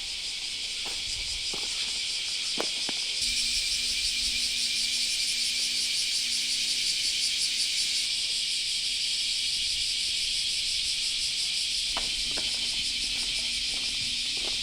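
Insects shrilling in a dense, steady high-pitched chorus with a fast pulsing texture. It grows louder about three seconds in. A few soft clicks sound beneath it.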